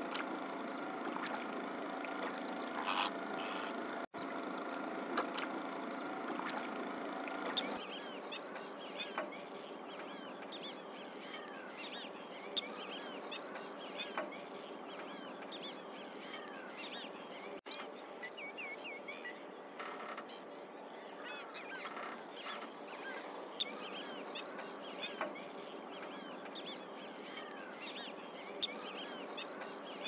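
A boat's motor running with a steady hum for about the first eight seconds, then a dense chorus of many short bird calls and chirps over water.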